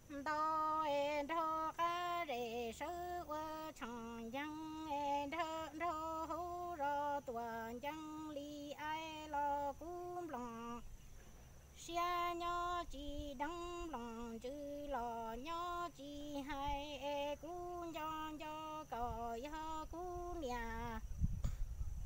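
A woman singing Hmong kwv txhiaj, unaccompanied sung poetry: two long phrases of held, wavering notes with a short break for breath about eleven seconds in. A low rumble comes in near the end.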